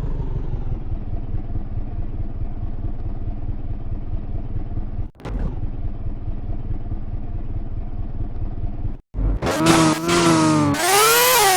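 Honda B18C 1.8-litre DOHC VTEC four-cylinder engine idling steadily, its revs settling back at first. After a sudden break about nine seconds in, it is revved hard twice, the pitch climbing and falling each time, the second rev higher than the first.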